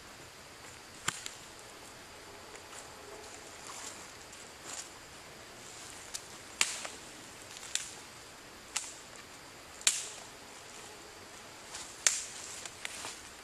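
Footsteps on wet forest-floor debris, snapping twigs as they go: a series of sharp cracks, several about a second apart in the second half.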